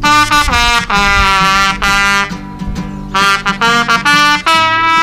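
Band music: a horn plays a melody of held notes, some about a second long, over guitar accompaniment.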